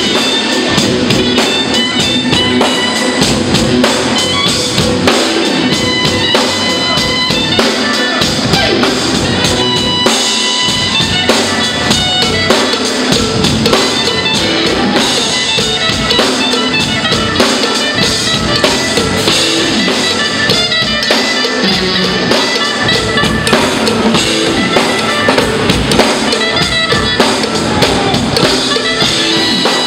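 Live jazz band playing, with a drum kit prominent throughout: busy cymbal and drum strikes under sustained pitched instruments.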